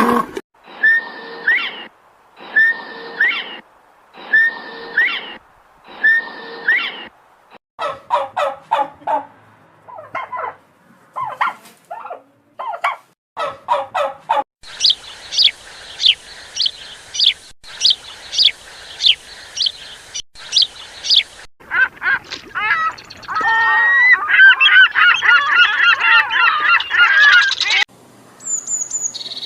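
A run of different bird calls, one species after another: first four evenly spaced calls about a second and a half apart, then short clusters of rapid calls, then a series of sharp repeated calls, and near the end several seconds of fast, busy chattering.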